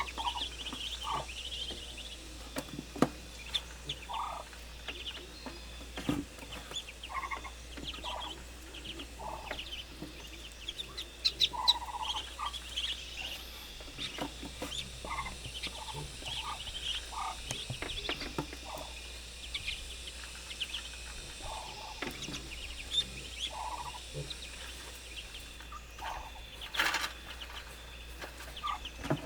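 Domestic poultry calling: short, irregular calls about once a second, over a continual patter of small high-pitched chirps.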